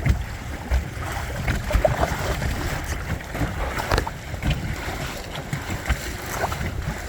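Wind buffeting the microphone and water washing along the hull of a Windrider 17 sailing trimaran under way, with a few brief sharp slaps or knocks.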